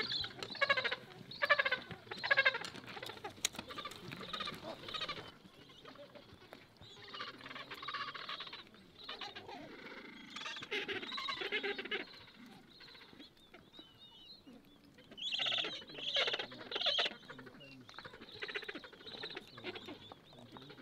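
Gentoo penguin colony calling: overlapping, rapidly pulsing calls from many birds, coming in bursts, loudest at the start and again about three-quarters of the way through.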